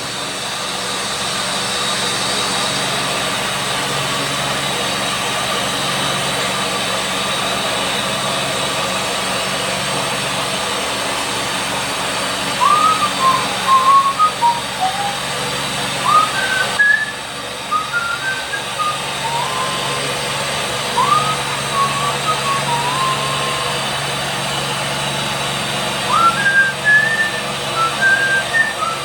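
A car lift's motor and hydraulics running with a steady hum and hiss as the car is let back down. From about twelve seconds in, short whistled phrases of quick rising and falling notes come in several groups over it.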